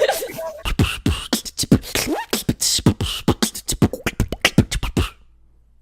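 A person beatboxing: a fast run of mouth-made kick drums, snares and hissy hi-hats, the deep kicks dropping in pitch. It stops abruptly about five seconds in.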